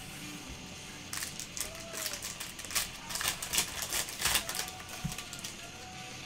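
Foil trading-card pack wrapper crinkling and tearing as the pack is opened by gloved hands: a quick run of crackles lasting about three and a half seconds, starting about a second in.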